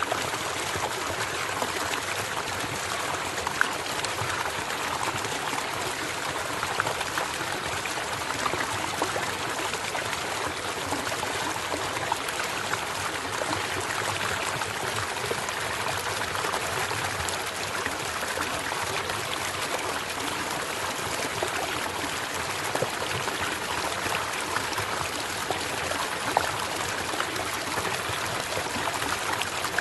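A stream running steadily, with a constant trickling of water and small scattered splashes.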